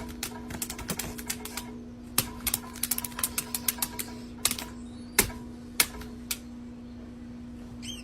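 Sharp, irregular clicks and taps, some in quick clusters, over a steady low hum.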